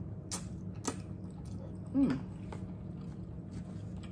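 A person slurping and chewing a mouthful of ramen noodles, with two sharp wet mouth smacks in the first second and a short hum falling in pitch about two seconds in, the loudest moment. A steady low hum runs underneath.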